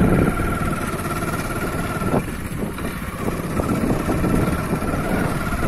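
A vehicle engine running steadily while moving slowly along a rough dirt track.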